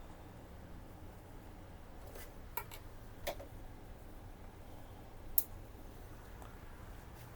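A few light clicks and taps of plastic printer parts being handled and fitted back together, the sharpest about five seconds in, over a low steady hum.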